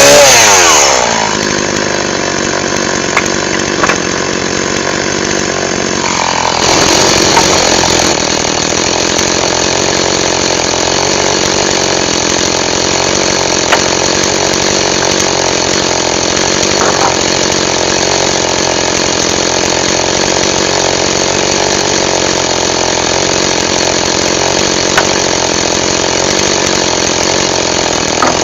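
Two-stroke chainsaw coming off full revs within the first second and settling to a steady idle. It runs briefly louder about six to eight seconds in, and a few light knocks sound over it.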